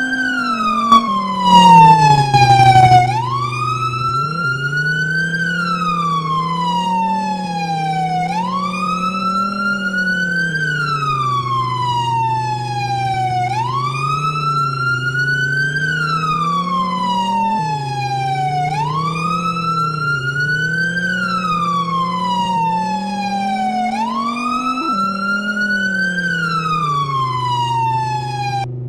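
Emergency vehicle siren in a slow wail, rising and falling about once every five seconds, over a low steady hum. A brief loud blast comes about two seconds in.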